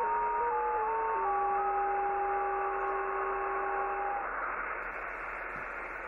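Radio receiver's speaker playing a strange received signal over static hiss: a tone that steps up and down in pitch every fraction of a second, then holds one steady pitch for about three seconds and stops a little after four seconds in, leaving only the hiss.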